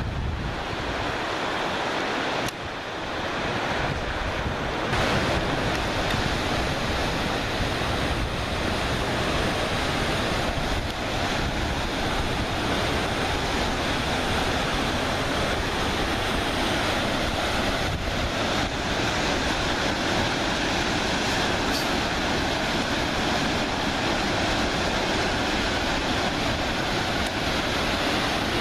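Mountain river rapids rushing over boulders: a steady, full sound of white water.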